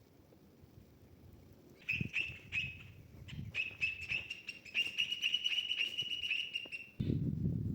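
A bird calling: a run of quick, high, repeated notes that speeds into a steady trill. The trill cuts off suddenly near the end, when a loud low noise takes over.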